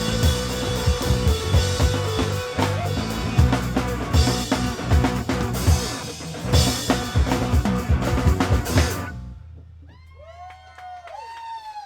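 Live rock band of drum kit, bass, guitar, banjo and violin playing the closing bars of a song, with the drums hitting hard; the music stops suddenly about nine seconds in. A few faint high, whistle-like tones that rise and fall follow.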